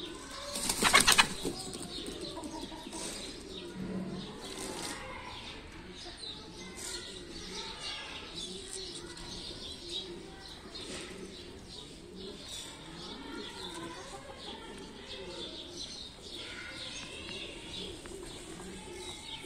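A short burst of wings flapping about a second in, then pigeons cooing softly over and over.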